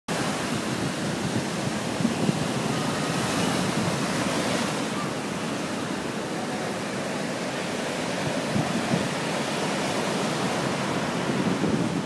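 Waves breaking and washing up on a sandy shore in strong wind, a steady rush of surf with wind buffeting the microphone in low gusts.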